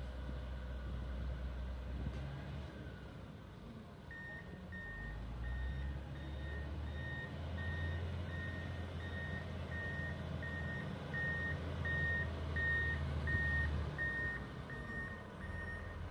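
Komatsu motor grader's diesel engine running with a low drone while its reverse alarm beeps steadily, starting about four seconds in, a little more than one beep a second: the grader is backing up.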